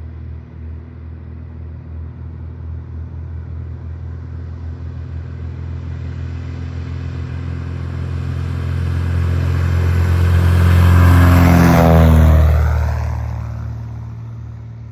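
Single-engine high-wing taildragger's piston engine and propeller at takeoff power, growing steadily louder, then dropping in pitch as the plane passes close about three-quarters of the way through and fading as it climbs away.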